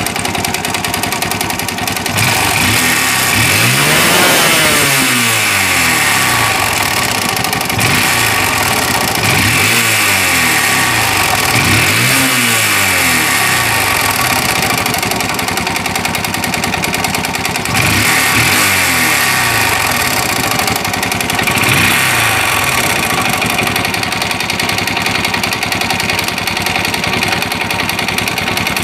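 Yamaha Sirius RC's four-stroke single-cylinder engine running loud and revved up and let fall back several times, with a rasping 'rè rè' noise as the revs rise and fall. The mechanic puts the noise down to a heavily scored cylinder and piston skirt and to the engine running out of oil.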